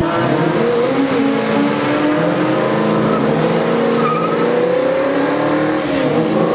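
Vortech-supercharged 360 V8 of a Chrysler Valiant Charger held at high revs in a burnout, the rear tyres spinning and squealing to heat them before a drag run.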